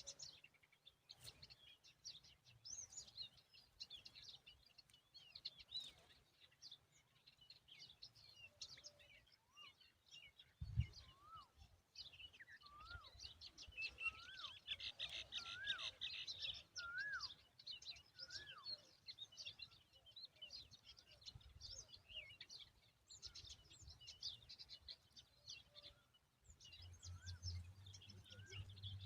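Small birds chirping faintly and continually in short high notes, with a denser flurry of chirps in the middle and a run of about six short whistled notes rising and falling in pitch. A single dull thump sounds about eleven seconds in.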